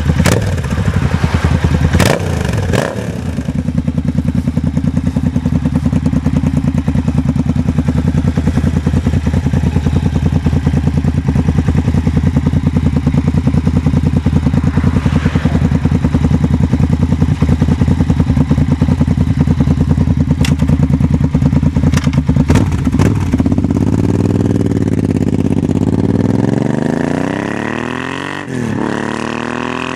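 Suzuki VX800's V-twin engine running loud through an exhaust with its dB killers removed. It holds a steady note with a few sharp clicks, then from about two-thirds through it is revved, its pitch rising and falling, with a rising sweep near the end.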